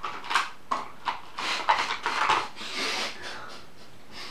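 A man's breathy, stifled laughter in short bursts.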